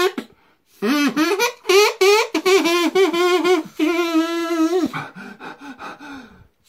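A drinking-straw oboe, its flattened straw reed blown and its finger holes covered and uncovered, playing a run of short notes that change pitch, with one longer held note about four seconds in. Near the end it drops to a fainter, rougher buzz.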